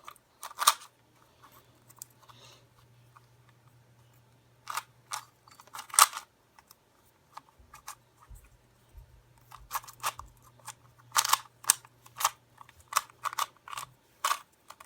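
Plastic clicks and clacks of a 2x2 puzzle cube being turned in a scramble, in irregular bursts, busier in the second half, with a quiet stretch of a few seconds near the start.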